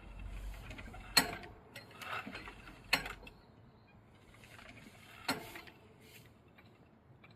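Church bell rope, wheel and pulley working as the treble bell is raised, with three sharp knocks: two close together early on and a third about five seconds in.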